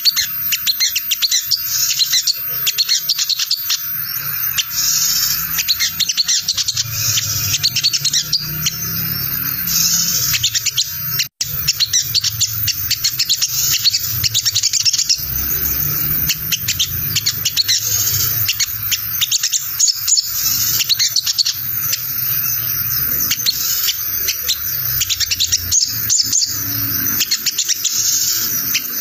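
Olive-backed sunbird (sogon) giving its rapid, scratchy ngriwik twittering nonstop, with one brief break about eleven seconds in. It is a lure call meant to set other sunbirds answering.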